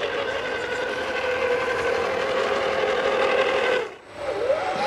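RC scale crawler's electric motor and gearbox whining at a steady pitch. The whine cuts out briefly about four seconds in, then comes back wavering up and down in pitch as the throttle changes.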